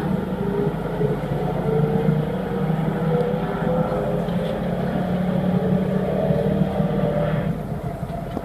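SMRT C751B train's propulsion whining as the train accelerates, several tones climbing slowly in pitch over a steady low hum and fading out near the end. The uploader calls this acceleration sound weird and traces it to the propulsion of one car.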